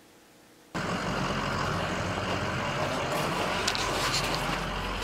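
Near silence, then about a second in a steady outdoor noise cuts in: an even rush with a low hum beneath it, and a few faint crunches near the end.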